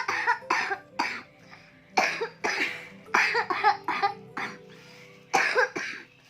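A person coughing deliberately and repeatedly in an effective-cough exercise, a series of short, sharp coughs in clusters, forcing up phlegm after deep breathing.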